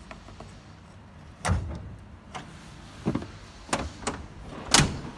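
A series of sharp plastic and metal clunks and knocks from a Scania truck's front grille being unlatched at its door-jamb release lever and swung open. There are about six knocks, a loud thud about a second and a half in, and the loudest near the end.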